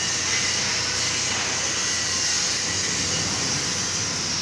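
Electric arc welding on a steel beam: a steady, unbroken hiss.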